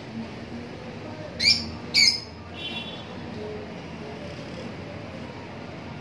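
Lutino peach-faced lovebird giving two sharp, shrill shrieks about half a second apart, followed by a brief faint chatter.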